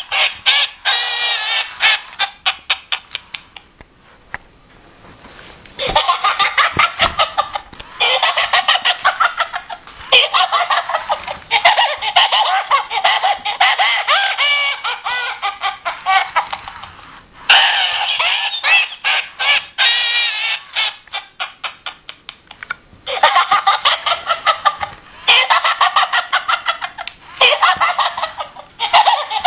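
Electronic toy donkey's small speaker playing its recorded laughing and cackling sound effects in repeated bursts a few seconds long, with short pauses between them.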